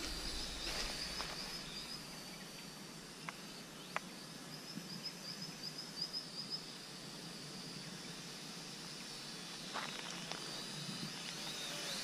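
Faint outdoor ambience: a steady high-pitched hum with two short runs of rapid chirping trills and a few sharp clicks.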